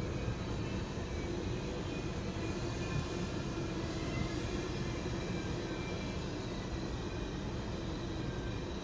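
Intermodal freight train's container cars rolling past at speed: a steady, even noise of wheels on rail.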